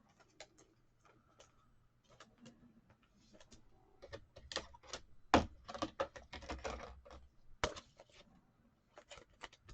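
Trading cards being handled: scattered light clicks and taps, busier about four seconds in, with two sharper taps in the middle.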